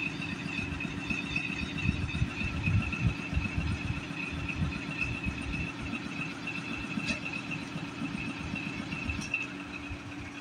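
Diesel switcher locomotive moving slowly with its passenger coaches, engine rumbling unevenly, with a steady high-pitched squeal over it.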